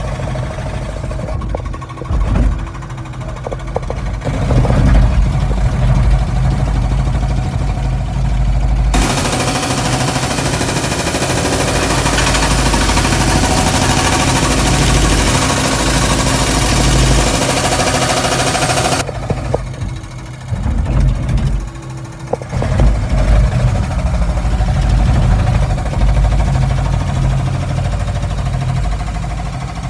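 Komatsu mini excavator's diesel engine running steadily, with its hydraulic rock breaker hammering in a fast, continuous stream of blows for about ten seconds in the middle.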